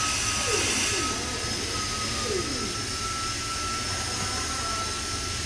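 Steady running noise of treatment-plant machinery: a low hum and an even hiss with a constant high-pitched whine.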